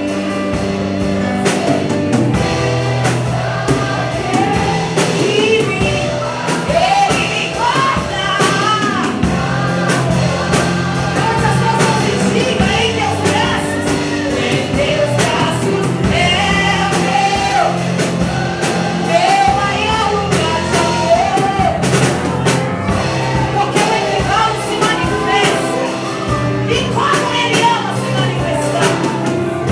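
Portuguese-language gospel worship song: a voice singing a melody over a band, with held bass notes and a drum beat.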